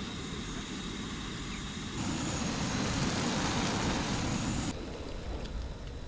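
Wind buffeting the microphone outdoors, a low rumble over a steady hiss. The sound changes abruptly about two seconds in and again near five seconds.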